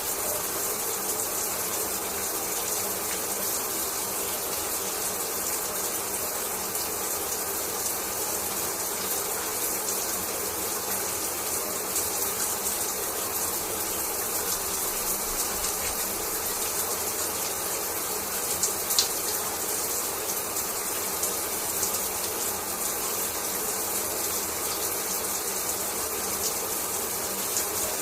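Shower water spraying and splashing steadily, with a few small drips or taps, one of them louder about 19 seconds in.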